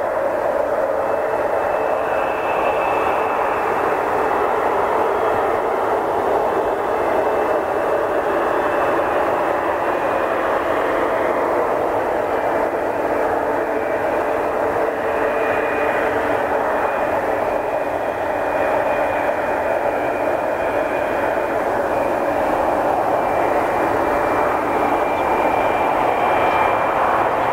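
Twin General Electric F404 turbofans of an F/A-18D Hornet at taxi power: a steady jet rush with a thin, high whine on top that wavers slightly in pitch.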